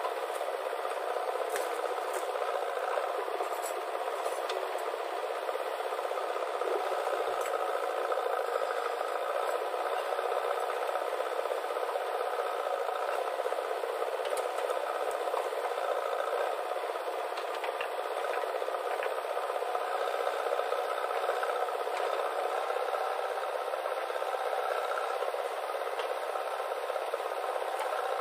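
JCB 3DX backhoe loader working: a steady engine and hydraulic drone, with scraping and rattling as the rear bucket digs soil and loads it into a tractor trolley.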